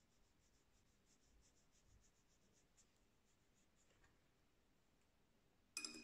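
Very faint scratching of a thin watercolour brush stroking along paper, a quick series of soft strokes over the first few seconds, then a sharp click with a brief ring near the end.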